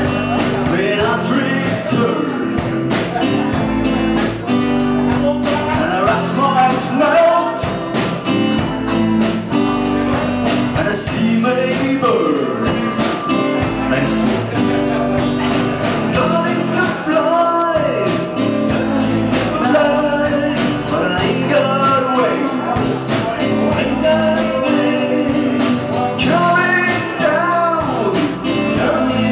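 Live band playing a rock song: a man singing at the microphone over strummed acoustic guitar and a drum kit.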